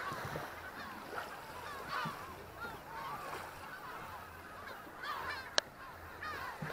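A flock of gulls calling overhead, many short cries overlapping. A single sharp click about five and a half seconds in.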